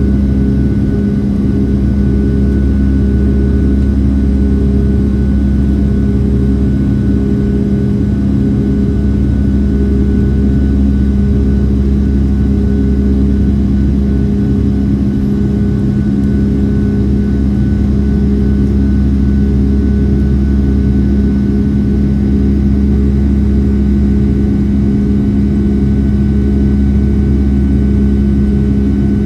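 Boeing 757-300's Rolls-Royce RB211 jet engines running steadily: a loud, even drone with a constant hum and a faint steady whine above it.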